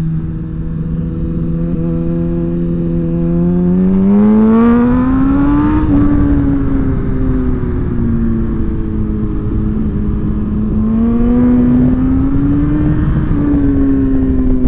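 Suzuki GSX-R1000 sport bike's inline-four engine under way, its pitch rising twice as the throttle opens, about four seconds in and again about eleven seconds in, and easing back after each, with steady wind rush over the microphone.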